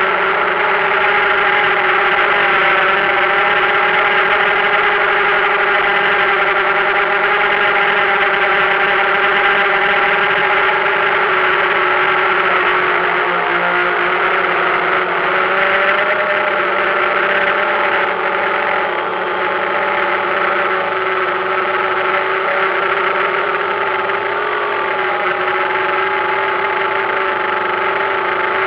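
Multirotor drone's electric motors and propellers running in flight, a steady whine of several tones that shifts slightly in pitch now and then as the drone manoeuvres.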